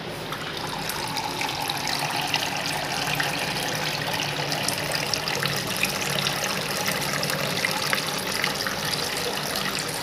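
Water of a homemade cement tabletop waterfall fountain, circulated by a small water pump, pouring and trickling steadily into its basin with constant light splashing.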